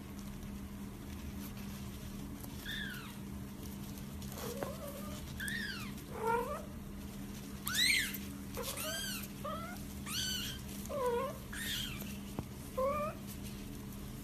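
Young kitten mewing repeatedly: about a dozen short, high-pitched calls, each rising and then falling in pitch, starting about three seconds in.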